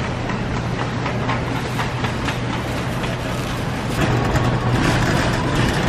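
Metal shopping cart rolling and rattling over a tiled store floor, louder from about four seconds in, over a steady low hum. In the first couple of seconds, a thin plastic produce bag rustles and crinkles.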